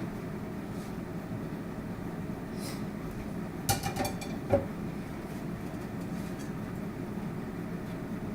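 A few sharp clinks of a utensil against a cooking pan, clustered around four seconds in, over a steady low rumble.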